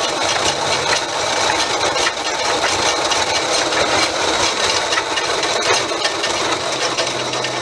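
1923 South Bend lathe running, its gear train rattling and clattering steadily.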